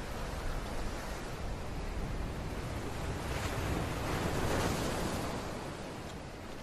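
Sea surf breaking over a rocky shore, a steady wash of waves. A louder wave swells about three and a half seconds in and then fades.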